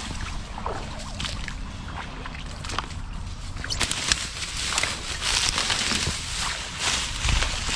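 Someone wading knee-deep through marsh water in waders, with irregular sloshing splashes and rustling of thick brush against the legs, busier in the second half.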